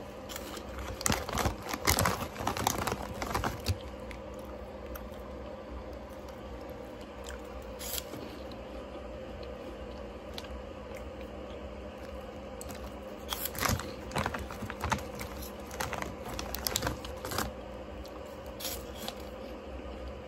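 Crunching and chewing of puffed corn snacks eaten close to the microphone, with the plastic snack bag crinkling. The crunching comes in bursts in the first few seconds and again about two-thirds of the way through, over a steady low hum.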